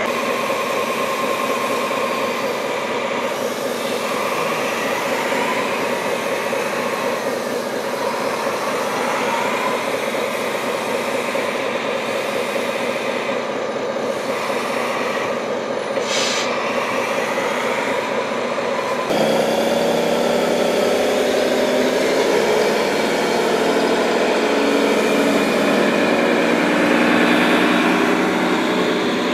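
Radio-controlled model trucks driving in sand, their motors whining and rising and falling in pitch with the throttle over a steady hum. The sound changes abruptly about two-thirds of the way through.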